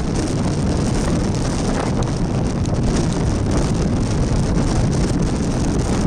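Wind buffeting the microphone: a steady, loud rumbling noise with no distinct bird calls standing out.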